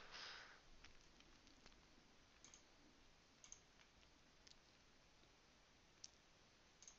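Near silence, with a few faint, scattered clicks from working at a computer, roughly one a second.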